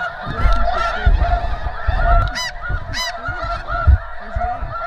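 A large flock of snow geese calling overhead: a dense, continuous chatter of short high honks, with a few louder, nearer calls standing out, and low rumbling bursts underneath.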